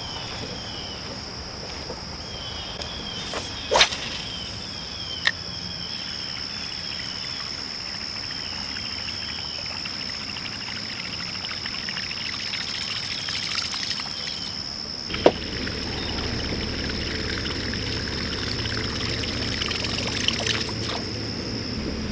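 Steady high-pitched insect drone, with short repeated chirps in the first few seconds. A few sharp clicks stand out, the loudest about four seconds in and again about two-thirds of the way through, and a low rumble builds in the second half.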